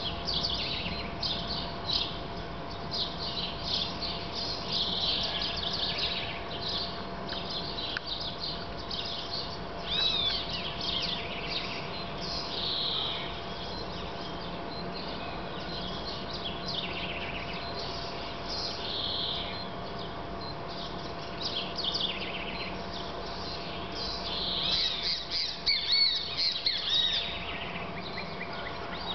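Birds chirping and calling over and over, with louder bursts of calls now and then, above a steady faint hum and a constant thin tone.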